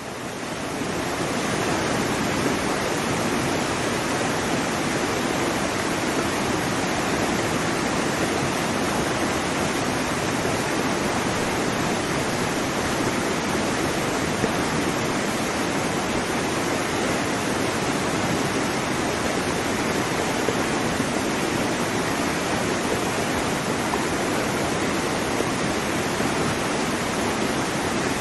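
Waterfall: a steady, dense rush of falling and splashing water, fading in from silence over the first second or so and then holding level.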